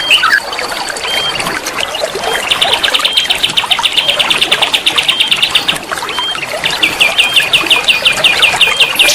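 A songbird singing fast runs of repeated notes, about ten a second, with short whistled notes between them, over the steady rush of flowing water.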